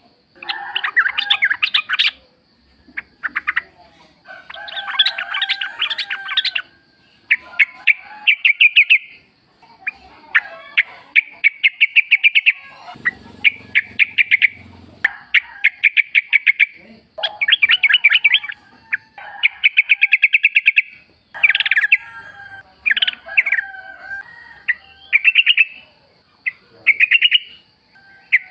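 Yellow-vented bulbul (trucuk) singing: repeated short phrases of rapid, bubbly chattering notes, a dozen or so bursts with brief pauses between them. A faint steady high whine runs underneath.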